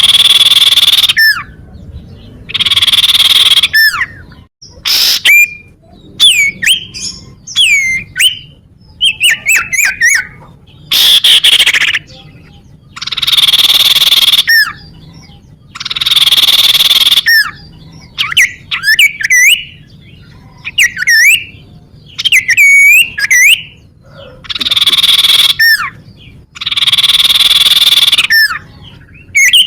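Common iora (the cipow or cito bird) calling. Harsh rasping calls, each about a second and a half long, alternate with quick runs of short whistled notes that slur up and down.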